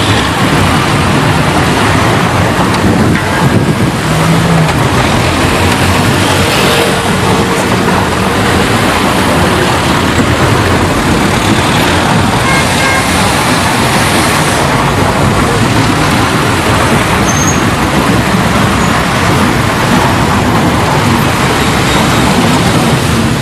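City street traffic: a steady wash of passing cars and heavier vehicles, engines and tyre noise blended together without a break.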